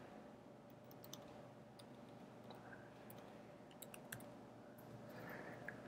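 Faint, scattered computer keyboard keystrokes against near-silent room tone.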